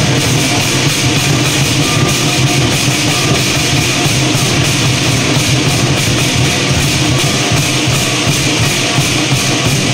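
Lion dance percussion ensemble of drum, cymbals and gong playing loudly and without a break.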